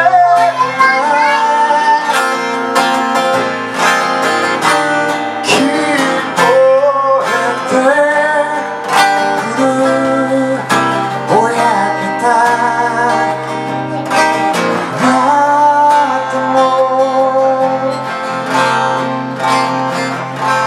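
Acoustic guitar strummed steadily through an instrumental break of a live song.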